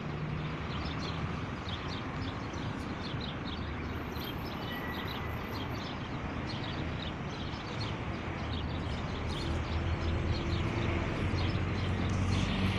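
Outdoor background of a steady low traffic rumble that grows louder near the end, with small birds chirping.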